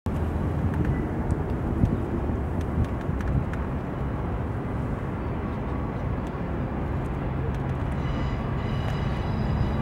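Low, steady rumble of an approaching DD200 diesel-electric locomotive. About eight seconds in, as it rounds the curve, a faint high whine joins the rumble.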